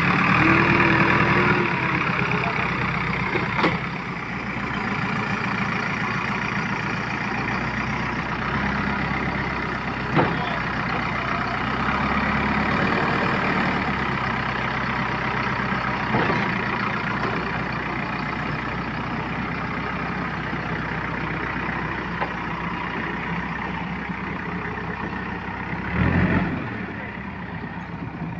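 Backhoe loader's diesel engine running steadily, with a few short knocks scattered through.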